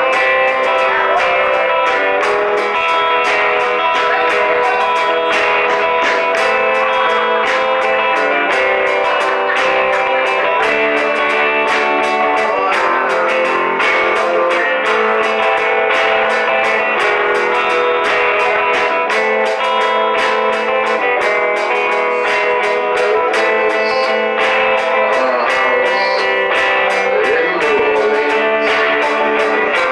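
Live band playing: strummed guitars over a steady drum beat.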